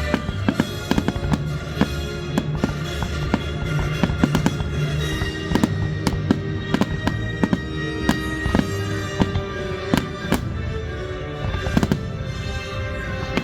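Fireworks exploring in rapid succession, many sharp bangs and crackles over loud music with steady held notes.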